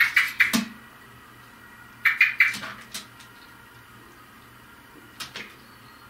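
Common blackbird giving short bursts of sharp calls, three bursts a couple of seconds apart, the last one brief.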